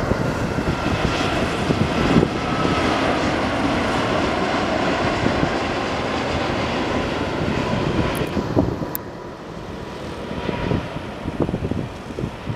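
Japan Airlines Boeing 787 jet airliner passing low overhead on landing approach, gear down. Its engines make a loud rushing noise with a faint whine that sinks slightly in pitch, then the sound drops away about nine seconds in as the plane moves on towards the runway.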